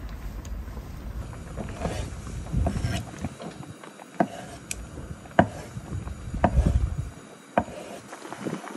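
Chef's knife slicing a block of tofu and striking a wooden cutting board, several sharp taps spread over the second half, over a low rumble that cuts off near the end.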